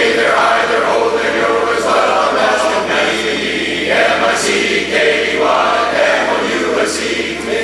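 Men's barbershop chorus singing a cappella in close harmony, holding chords that shift every second or so.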